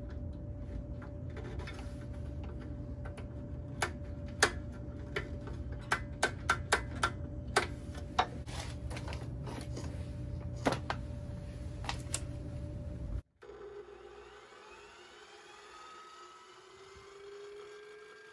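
A steady electrical hum with scattered sharp clicks, stopping suddenly about thirteen seconds in. After that comes a quieter, faint whine with slowly gliding tones as the converted chop saw's blade spins.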